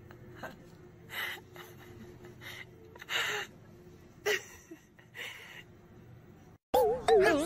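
Orange tabby cat sniffing and snorting into dried catnip: about five short breathy snuffles, a second or so apart, over a quiet background. Music starts abruptly near the end.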